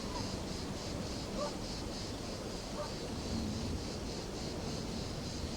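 Outdoor countryside ambience: a high, evenly pulsing chorus like insects, with a few short faint bird calls over a low rumble.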